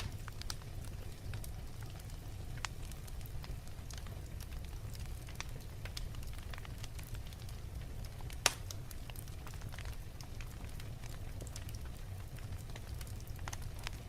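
Wood fire crackling in a fireplace: a steady low rumble with scattered small pops, and one louder pop about eight and a half seconds in.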